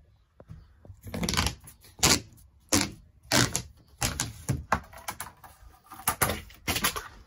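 Plastic ceiling trim strip and panelling being pulled away from a water-rotted motorhome ceiling: a run of irregular sharp cracks and snaps.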